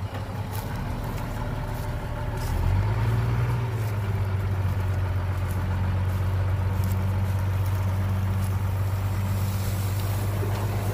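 Heavy diesel engine running steadily. About three seconds in, its note rises and grows louder, then holds.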